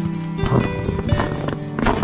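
Background music of held, sustained notes, with a run of irregular clatter laid over it.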